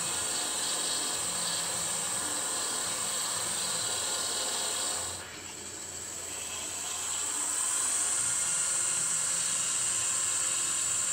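CNC milling machine's 1 hp brushless DC spindle motor running with a steady high whine as a drill bit bores screw holes in 1/4-inch plywood. About five seconds in the sound drops off suddenly, then builds back to a steady level as a 1/2-inch end mill cuts into the plywood.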